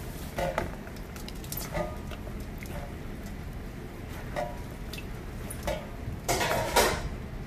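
Rubber-gloved hands tossing seasoned blanched spinach in a stainless steel bowl: wet squishing and rustling in a few short bursts, with a longer, louder spell of tossing near the end.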